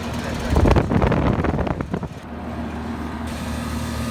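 BDP 542 package heat pump running with a steady hum. About half a second in, a loud burst of rumbling, rushing noise lasts about a second and a half and then falls back to the hum.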